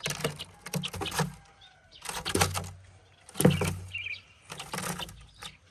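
A fledgling bird fluttering and scrabbling inside a foam box, trying to get out, in several short rustling bursts.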